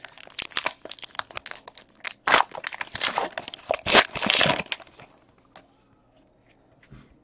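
A foil trading-card pack wrapper being torn open and crinkled by hand: dense crackling with sharp rips, loudest a little after two seconds in and again around four seconds, stopping about five seconds in.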